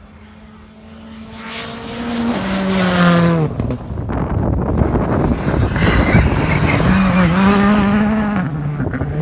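Modern rally car coming through at stage speed: the engine note holds, then drops as the driver lifts and shifts down. Tyre noise follows as the car passes, then the revs climb again through the gears and fall near the end.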